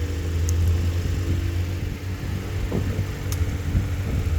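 An engine running steadily at idle, a low even hum, with a couple of light clicks.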